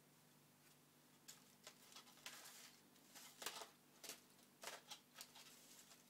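A cat rummaging in a kitchen cupboard: faint, scattered light taps and rustles, about ten in all, with a longer rustle a little after two seconds in.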